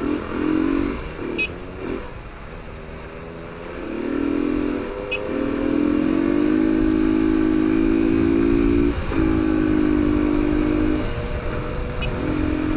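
Motorcycle engine heard from the rider's seat, with wind and road noise. In short uneven bursts for the first two seconds, then it picks up in pitch and loudness about four seconds in and runs at a steady pitch, with a brief dip around nine seconds.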